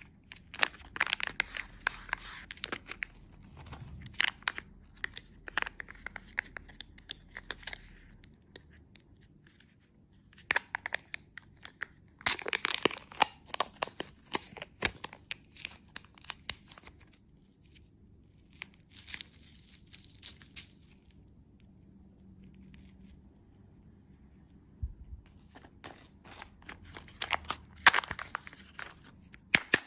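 Wrapper packaging being torn open and crinkled by hand, in bursts of sharp crackling with short pauses between.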